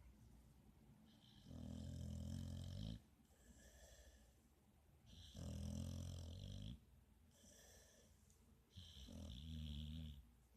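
Pit bull snoring in its sleep: three long snores, each about a second and a half and coming roughly every three and a half seconds, with fainter breaths between them.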